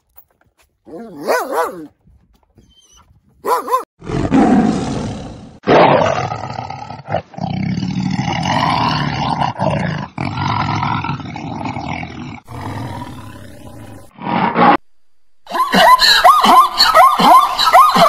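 A husky gives a few short whining calls, then a male lion roars and growls in a long run of deep calls lasting about ten seconds. Near the end a zebra starts a rapid series of calls.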